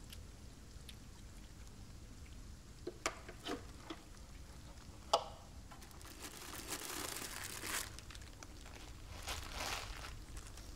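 A few light knocks and a sharp click about five seconds in as a metal box is opened. Then foil wrapping inside it crinkles and rustles in two spells.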